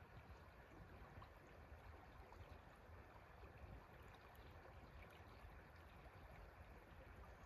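Faint, steady flow of a river, an even rushing with a low rumble underneath.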